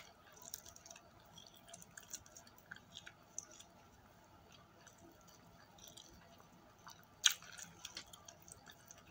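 A person eating fried chicken by hand: faint chewing and small wet clicks and squishes as the meat is torn and eaten, with one louder crackle about seven seconds in.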